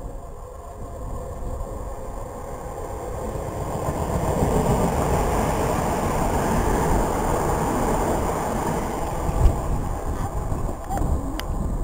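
Southern Class 377 Electrostar electric multiple unit running close past: the rumble and hiss of wheels on rail build over the first few seconds and stay loud as the carriages go by. There is a sharp knock near the end.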